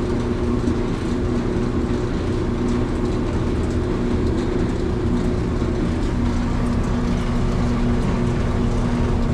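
Samsung electric clothes dryer running on a test cycle: the drive motor turns the empty drum steadily, with a constant hum and rumble.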